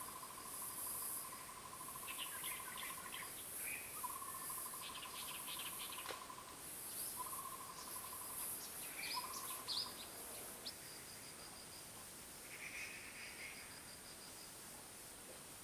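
Wild forest ambience: insects shrilling in a high, pulsing drone, a steady trill repeated in long phrases of one to three seconds that stops about ten seconds in, and scattered short bird chirps.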